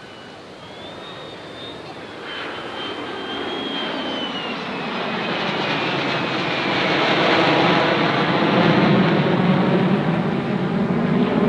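Military aircraft making a pass overhead, growing steadily louder as it approaches, with a high whine that slides downward in pitch.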